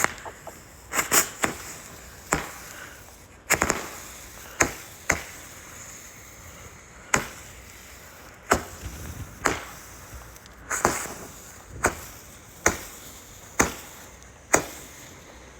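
Fireworks exploding one after another, about fifteen sharp bangs at irregular gaps of roughly a second, each with a short echo.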